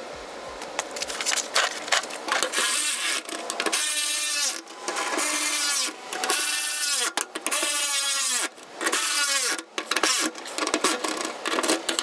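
A power tool running in repeated short bursts about a second apart, its pitch dipping and recovering within each burst.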